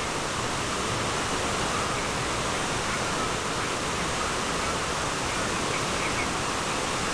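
Water cascading down the walls of the 9/11 Memorial reflecting pool: a steady, even rush of falling water.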